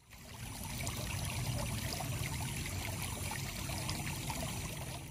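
Water of a shallow stream running steadily, fading in at the start and out near the end.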